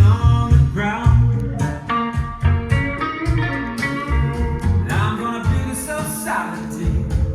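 A song with a singing voice and guitar, played back through JBL LX-66 loudspeakers driven by a Hitachi HMA-8500 mkII power amplifier.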